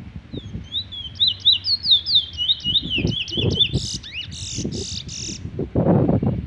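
A caged bullfinch (the Trinidad name for the chestnut-bellied seed finch) singing a fast run of short whistled notes that rise and fall, ending in about four harsher, buzzy notes. Low rumbling noise runs underneath and is loudest near the end.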